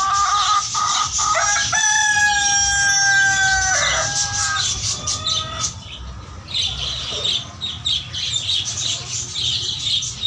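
Caged birds calling: one long drawn-out call held for about two seconds, starting about one and a half seconds in, with shorter calls around it, over constant high chirping from many birds.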